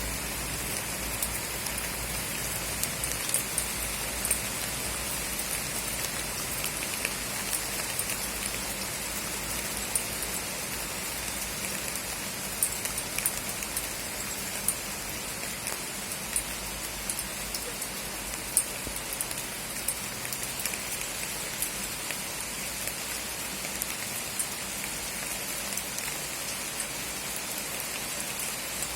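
Heavy rain falling steadily: an even hiss, with frequent sharp taps of drops landing close by.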